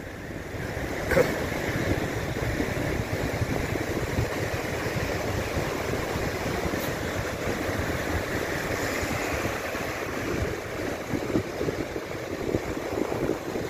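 Surf breaking on a beach: a steady rushing wash of waves, with wind on the microphone. There is a brief click about a second in.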